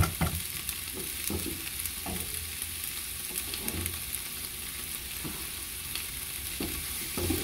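Sliced onions sizzling steadily in oil in a skillet as they slowly caramelize, with a few soft knocks of utensils and cookware. A single sharp knock right at the start.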